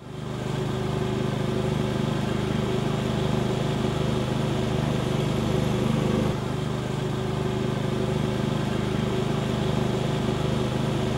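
Ride-on lawn mower's engine running steadily as the mower drives across the lawn, fading in at the start and out near the end.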